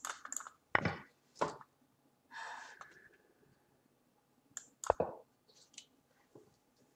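Sharp clicks and knocks as moves are played on an online chess board: a cluster early on, then another about five seconds in. Between them, about two and a half seconds in, a short breathy exhale.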